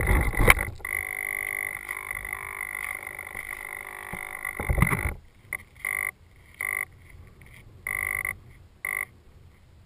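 Knocks as the FPV aircraft with its onboard camera is set down. Then a steady high electronic tone for about five seconds, which breaks into a string of short beeps of uneven length.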